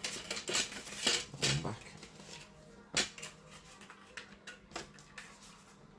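Hard plastic cassette cases clicking and clattering as they are handled: a run of rattles and clicks in the first two seconds, a sharp click about three seconds in, then lighter taps.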